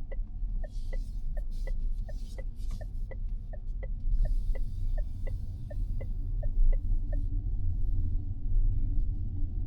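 Mazda 6e electric car on the move, heard from inside the cabin: a steady low rumble of road and tyre noise. Over it the turn-signal indicator ticks evenly, about three ticks a second, and stops about seven seconds in.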